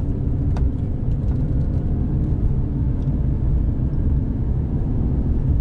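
Car driving, heard from inside the cabin: a steady low rumble of tyres on the road and the engine, with a faint click about half a second in.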